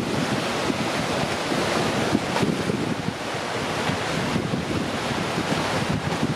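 Steady sea surf and wind, with wind rushing on the microphone.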